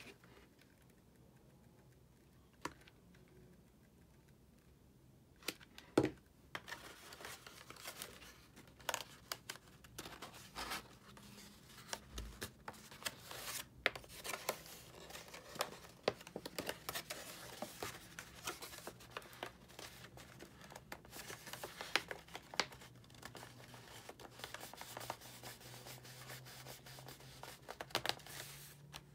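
Stiff cardstock petals rustling, crinkling and scraping as they are handled, bent and pressed into place, with many sharp paper clicks and crackles. It starts about six seconds in after a near-quiet stretch with a single click.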